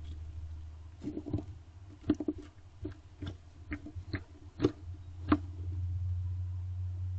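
Female barn owl feeding on prey inside a wooden nest box: a run of about ten sharp clicks and scuffs from tearing and handling the prey, starting about a second in and stopping at about five and a half seconds, over a steady low hum.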